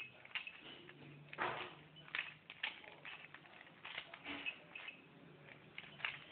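Plastic Rubik's cube being turned by hand: irregular clicks and clacks as its layers are twisted, with a louder clatter about a second and a half in.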